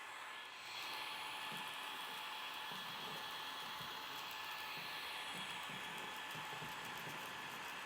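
Candy SO103 cordless stick vacuum running: a steady rush of air with a high motor whine, which gets louder about a second in.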